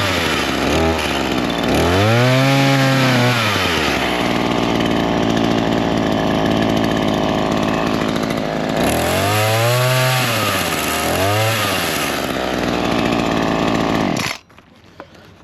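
Chainsaw cutting into a storm-felled tree. The engine speeds up and slows down several times, running steadily in between, and then stops abruptly about a second before the end.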